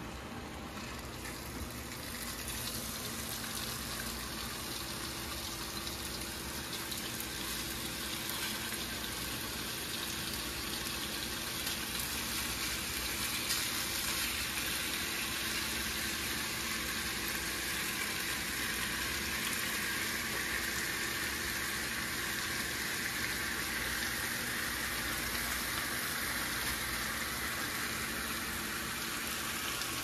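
Food sizzling steadily in a hot pan, growing a little louder a couple of seconds in, over a low steady hum.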